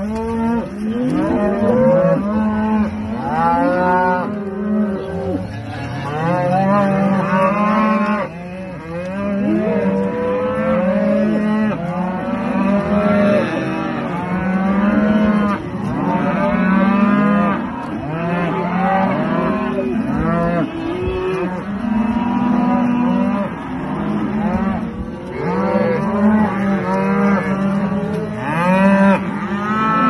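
A herd of Aberdeen Angus cattle mooing constantly, many calls overlapping, some low and drawn out, others higher and arching.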